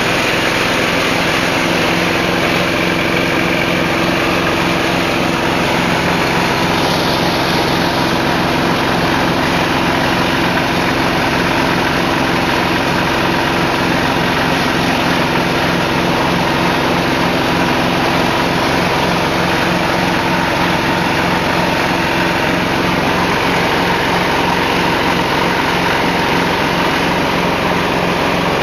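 Animal-feed chopper machine running steadily, its motor giving a constant loud mechanical drone that holds an even pitch with no breaks.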